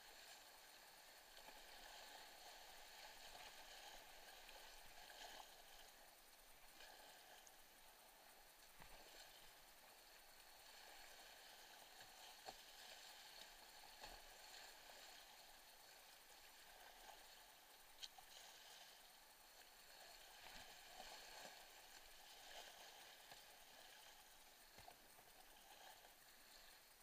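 Faint rushing of a creek running high in flood, a steady wash of whitewater around a kayak. A few sharp knocks break through it, the loudest about two-thirds of the way in.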